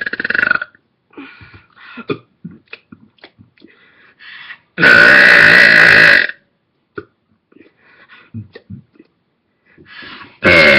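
A person belching loudly on purpose: one belch trailing off just after the start, a long belch of about a second and a half near the middle, and another beginning near the end. Short faint mouth and throat sounds fill the gaps between.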